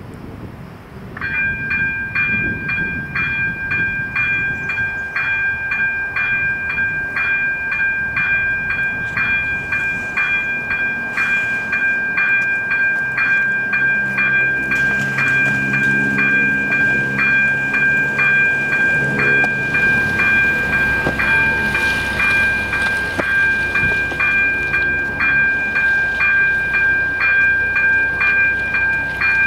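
ZV-02 electric level-crossing bell starts ringing about a second in, a steady, rapid run of evenly spaced two-tone strokes. This is the crossing's warning that it has been activated for an approaching train. A lower vehicle hum swells and fades under it in the middle.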